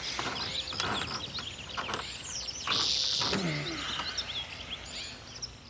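Birds chirping and singing, many short quick calls overlapping, louder for a moment about three seconds in.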